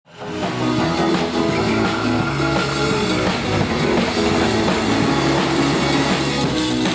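Rock music with a drum kit and guitar, fading in quickly at the start.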